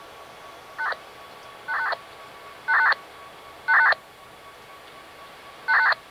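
Five touch-tone (DTMF) dialing beeps over a railroad two-way radio, about one a second, with the last one after a two-second gap.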